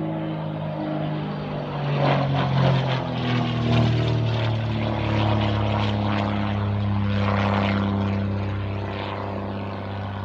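A Saab 91B Safir's piston engine and propeller droning overhead as the plane flies aerobatics. The engine note drops in pitch about two seconds in and then holds steady. It is loudest over the next few seconds and eases off a little near the end.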